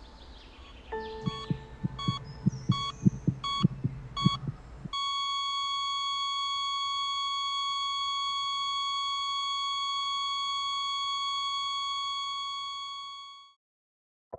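Sound-designed heartbeat thumping under a low drone, with a hospital heart monitor beeping about every 0.7 s. About five seconds in the monitor switches to one continuous flatline tone, the sign that the heart has stopped. The tone holds for about eight seconds, then fades out.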